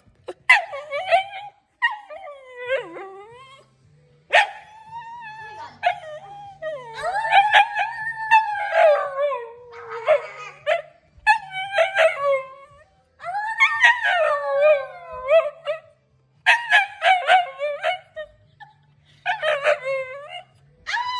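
A dog 'talking': a string of whining, howl-like vocalisations that slide up and down in pitch, in bouts of one to two seconds with short pauses between them.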